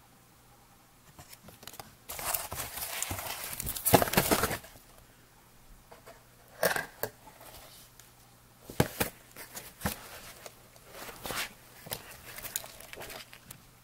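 Rustling and handling of paper and cardboard from an opened subscription box. A long, loud rustle starts about two seconds in, then come scattered short rustles and light taps as items are lifted out.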